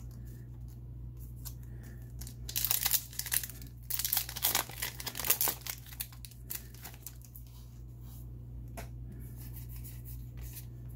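Yu-Gi-Oh! booster pack wrapper being torn open, in two loud bursts of tearing and crinkling about two and a half and four seconds in, then cards handled with a few faint ticks.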